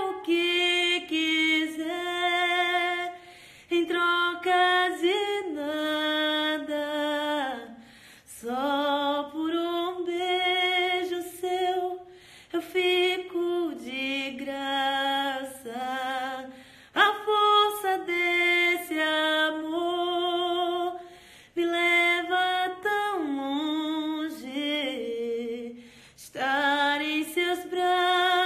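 A woman singing a cappella, with long held notes that waver with vibrato. Her phrases of a few seconds each are separated by short breaths.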